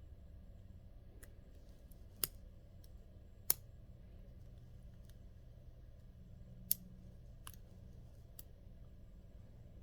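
Sparse, light metallic clicks of a lock pick and tension wrench working the pins of a 4-pin Hudson lock. Three sharper clicks stand out, about two, three and a half, and nearly seven seconds in, over a faint low hum.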